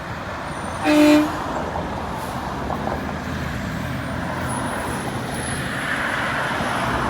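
A single short horn toot about a second in, over the steady road noise of a moving vehicle.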